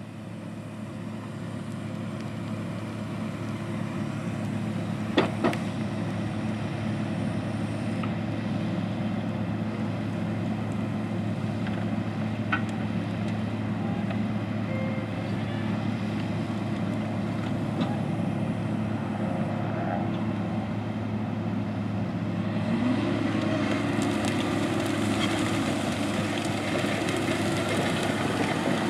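Case IH Steiger four-wheel-drive tractor's FPT 12.9-litre engine running steadily under load while it pulls a vertical tillage tool across the field. There are two sharp knocks about five seconds in. Near the end the engine note rises and grows louder.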